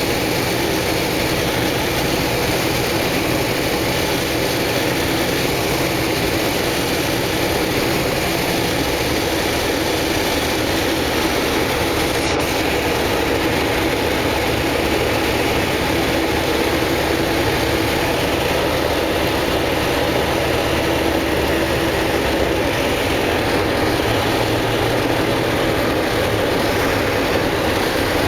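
Engines running in a steady, unbroken drone with a low hum.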